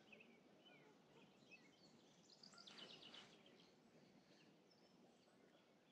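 Near silence with faint, scattered bird chirps and a short burst of quick chirps about halfway through.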